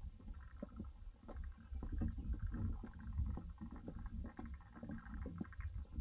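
Footsteps of a hiker crossing a footbridge, short knocks about two a second over a low rumble.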